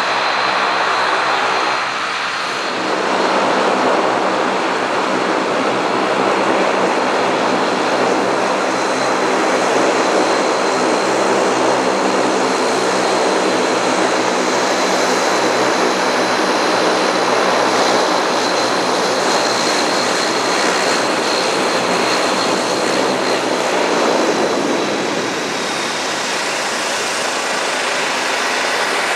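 Dash 8 Q400's Pratt & Whitney PW150A turboprop engines running at low power with the propellers turning: a steady loud drone with a thin high whine held over it. The sound eases a little near the end.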